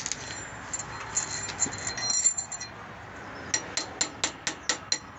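Steel wrench clinking against a trailer's brake slack adjuster: ringing metallic clinks, then a quick run of about seven sharp metallic clicks, about four a second, near the end.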